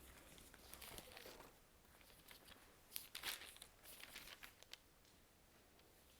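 Faint rustling of paper pages being turned, in a few brief bursts as a Bible is leafed through to find a passage.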